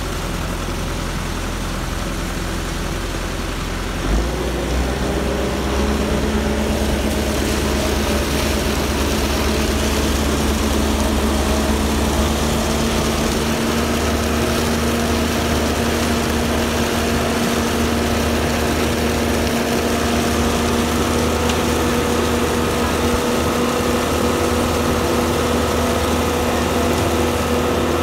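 Diesel engine of an Ajax Fiori Argo 2500 self-loading concrete mixer running steadily while the drum discharges concrete down the chute. About four seconds in, the engine speeds up and holds at the higher speed.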